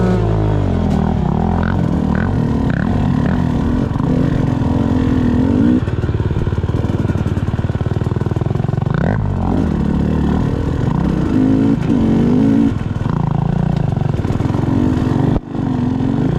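Enduro motorcycle engine running at low revs and repeatedly revving up and falling back as the bike is ridden slowly over rough ground. There is a brief drop in the sound near the end.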